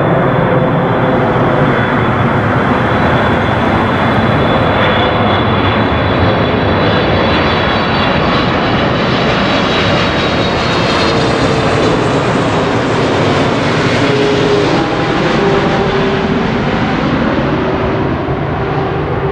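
Jet airliner passing low overhead on approach to land: a steady jet roar with whining engine tones that slowly drop in pitch as it goes by, loudest about halfway through.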